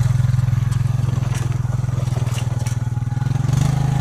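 A four-wheeler (ATV) engine running steadily, with a slight rise in level near the end and a few light rattles and clatters, typical of a machine hauling a load of building materials.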